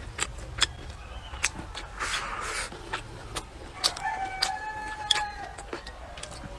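A rooster crows once, a single held call of a little over a second starting about four seconds in, among scattered sharp clicks and taps.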